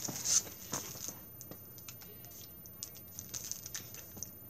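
Plastic packaging of a packet of treat bags being handled: light crinkling and a run of short clicks, loudest in the first second, then scattered lighter clicks.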